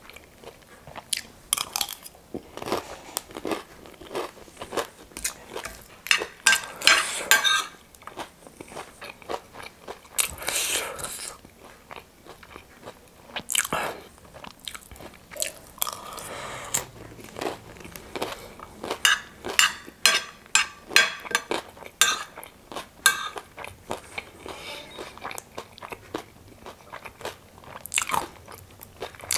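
Close-miked mouth sounds of chewing crunchy spicy chatpate, a Nepali puffed-rice snack mixed with crushed noodles and chips. The crunching comes in irregular bursts with short pauses between them.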